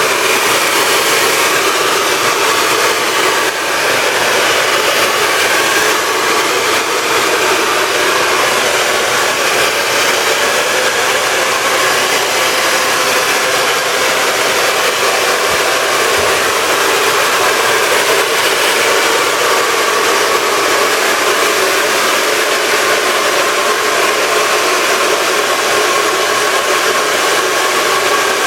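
Hand-held hair dryer running steadily on a loud setting, blowing with an even rushing hiss and a faint whine.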